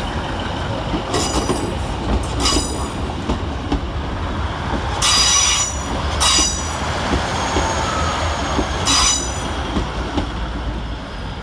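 Pair of Class 156 Sprinter diesel multiple units pulling out, their engines rumbling steadily. The wheels give about five short, high-pitched squeals, the longest around the middle.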